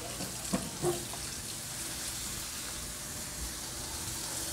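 Diced onion and jalapeño frying in butter in a stainless sauté pan under a lump of raw ground turkey: a steady soft sizzle, with a few faint short knocks in the first second.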